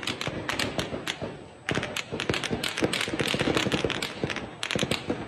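A rapid, irregular series of sharp bangs and cracks, several a second, over a wash of crowd noise. It is loudest from about two seconds in.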